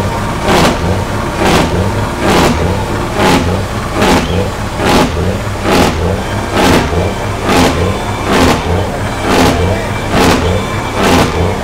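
Car engine revving in an even rhythm, a surge a little under once a second over a constant low drone.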